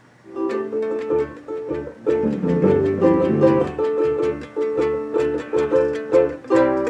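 Ukulele and bass ukulele playing an instrumental tune together: a quick repeating pattern of plucked notes over low bass notes. It starts just after a brief silence at the beginning.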